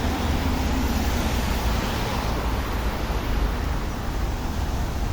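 Steady city street traffic noise: a low rumble of passing vehicles with a hiss over it.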